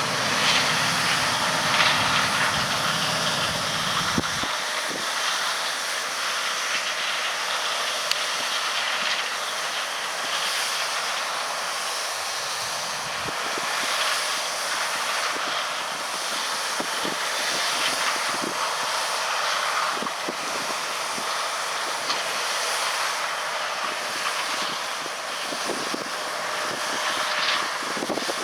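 John Deere S680 combine running steadily while harvesting corn, a continuous mechanical rush and hiss. Its deep rumble drops away about four seconds in, leaving the higher machine noise.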